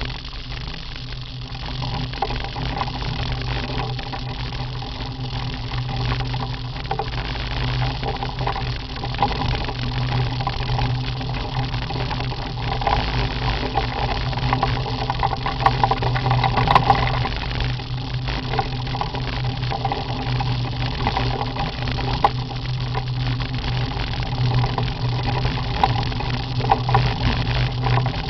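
Motorcycle engine running steadily as the sidecar rig cruises along a gravel road, with wind rushing over the microphone.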